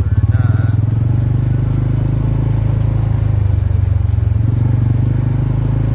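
Four-wheeler (ATV) engine running close by, a steady low drone whose note shifts as the throttle changes, just after the start and again near the end.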